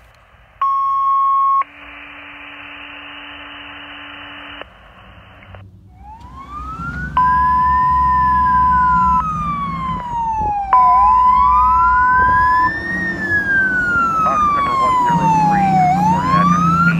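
Two radio alert tones, a short steady high tone and then a longer lower tone with hiss. Then a fire engine's siren wailing slowly up and down as the truck approaches, over its engine rumble, with a steady high tone sounding twice over the wail.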